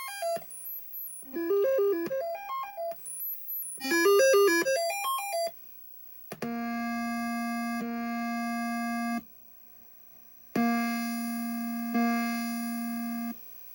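Commodore 64 SID sound chip playing a diagnostic cartridge's sound test: three quick runs of stepped electronic notes, then, after a short gap, two long steady buzzy tones of about three seconds each. The owner judges from this test that the SID chip is defective.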